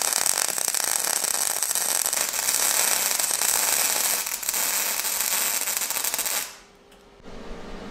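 Wire-feed welder's arc crackling steadily as it lays a bead on steel tube, then cutting off about six and a half seconds in, leaving a quieter steady hum near the end.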